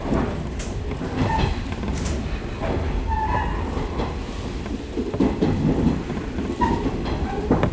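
Electric local train's running noise heard inside the passenger car as it pulls out through a station yard: a steady low rumble of wheels on rail, with sharp clicks as the wheels cross rail joints and points, and a few short squeaks.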